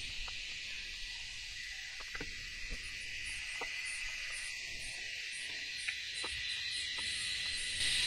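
Steady, high-pitched chorus of insects, with a few faint taps.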